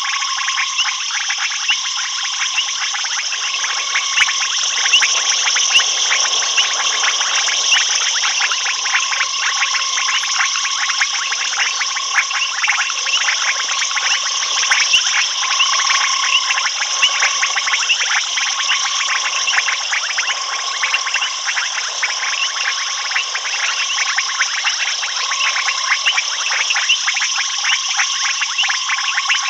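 Dense night chorus of frogs and insects at a waterhole: a mass of fast clicking calls, a high steady insect buzz, and a short call repeated every second or two.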